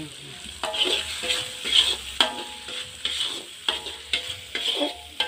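Spatula scraping and stirring in a metal wok, several strokes each with a short metallic ring, over the steady sizzle of spice paste frying.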